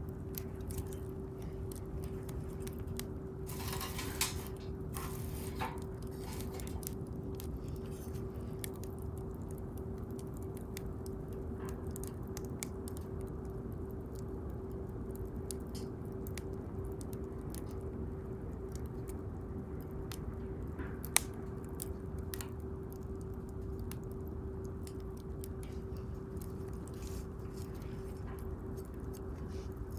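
Wood bonfire crackling, with scattered sharp pops and a single loud pop about 21 seconds in, over a steady low hum.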